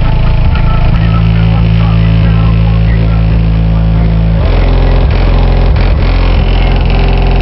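Car subwoofers pounding out bass-heavy music at high volume, the bass notes dropping deeper about four and a half seconds in.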